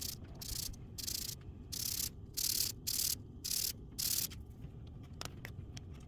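Sandpaper rubbing back and forth on a small wooden dowel peg by hand, a rhythmic hiss of about two strokes a second that stops a little past four seconds in. The peg is being sanded down to fit its hole.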